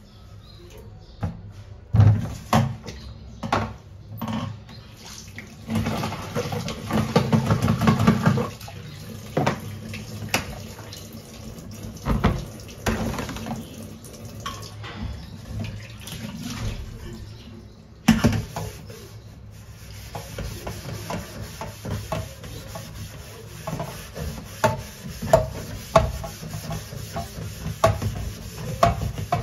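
Dishes being washed by hand in a stainless-steel sink: tap water running and splashing, with metal bowls and pots knocking and clinking against each other and the sink.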